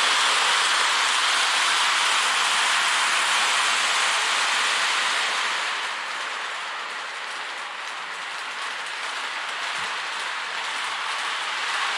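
Polar Express model train set running on its track: a steady hissing, rattling run noise that eases off somewhat about halfway.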